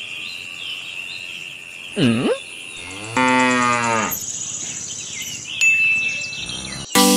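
Cow mooing twice: a short call that dips and rises in pitch about two seconds in, then a longer held moo about a second later, over a steady high-pitched tone.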